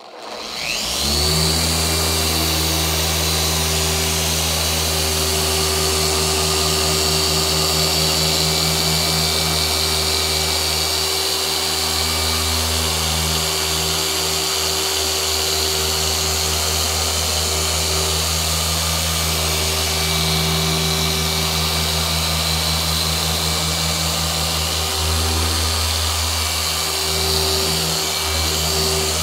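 Rupes long-throw dual-action polisher starting up at speed 5 and running steadily with a Rupes foam pad on car paint: a steady motor hum and whine that does not stall out.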